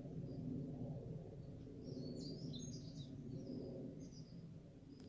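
Steady, fluttering rumble of a helicopter, an Écureuil (AS350), passing at a distance. Birds chirp over it for about a second, some two seconds in.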